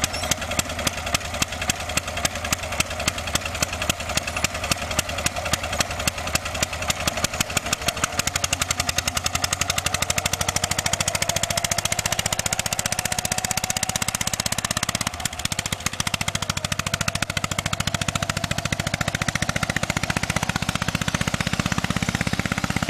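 Old pull-start tractor engine chugging under load with distinct, evenly spaced firing beats. About eight seconds in the beats come much faster as the engine picks up speed, with a brief drop about fifteen seconds in.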